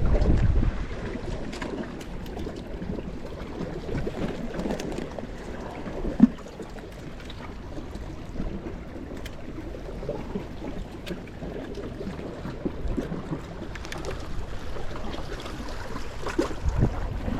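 Wind buffeting the microphone at the seaside, with water washing in the background; the wind is stronger at the start and near the end. A brief sharp sound stands out about six seconds in.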